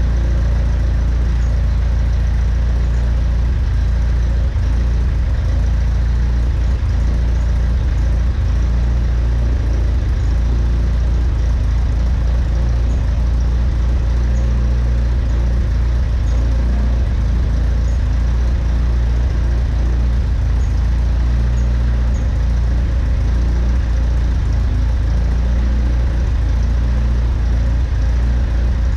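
Freshly rebuilt engine running steadily with a deep, even drone that does not change in speed.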